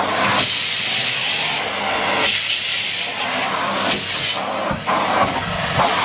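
Numatic Henry cylinder vacuum cleaner running and sucking spilled oatmeal off the carpet through its hose. It makes a steady airy rush that shifts in tone a few times while the high hiss carries on.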